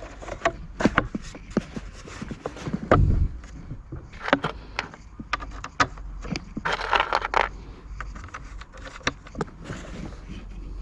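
Irregular clicks, knocks and short scrapes of plastic and metal parts being handled and fitted together while a leaf blower is reassembled.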